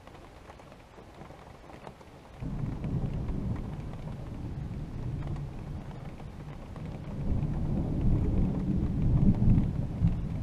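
Rain patters lightly, then about two and a half seconds in a deep thunder rumble breaks in suddenly. It rolls on and swells to its loudest near the end.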